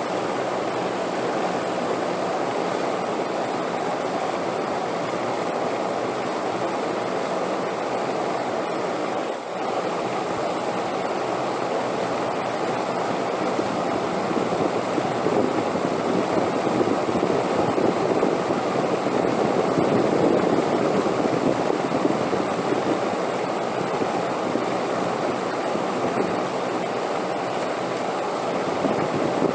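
Steady wind noise, a dull even rushing with most of its weight in the low-middle range. It dips briefly about nine seconds in and swells a little louder in the second half.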